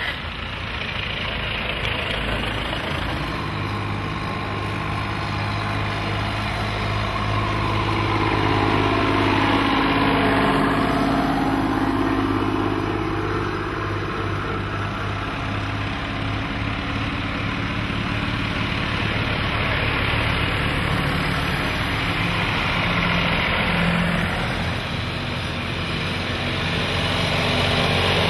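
Engines of vintage farm tractors running as the tractors drive past one after another. About ten seconds in, one engine note falls steadily in pitch as that tractor goes by.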